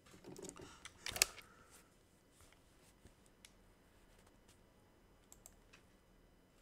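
A few faint clicks and light handling noises, with one sharper click about a second in, then scattered soft ticks over quiet room tone.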